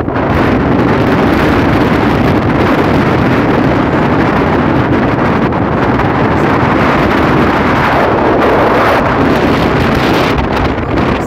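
Strong wind buffeting the phone's microphone, a loud, steady rumble and rush with the wind itself blowing through the trees.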